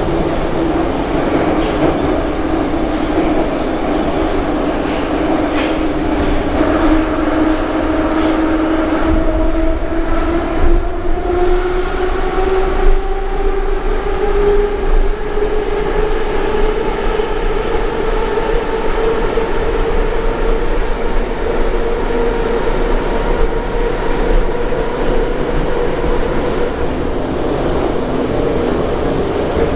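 Metro train running through a tunnel, heard inside the passenger car: a steady rumble and rattle with a whine from the drive that rises in pitch about a third of the way in as the train gathers speed, then holds steady at cruising speed.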